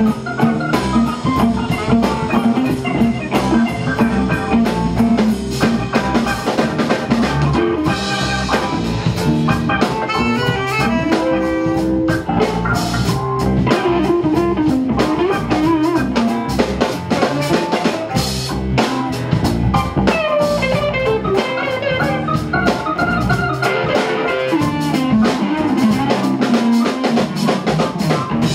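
Live band playing an instrumental jam: drum kit, acoustic and electric guitars, keyboard and saxophone.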